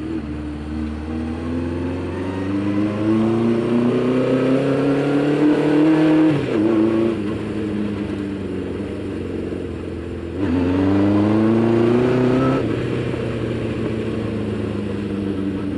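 Honda CB500 Four's air-cooled inline-four engine under way, its revs climbing for about six seconds, dropping sharply, holding steady, then climbing again about ten seconds in before dropping back.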